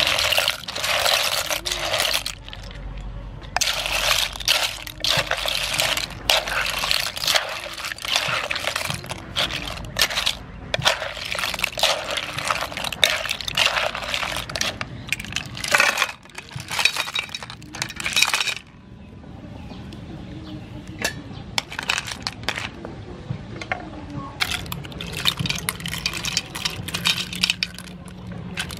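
Cockles in their shells clattering and clinking against each other and the wooden mortar as they are tossed and mixed into the salad, in irregular bursts with a quieter lull about two-thirds of the way through.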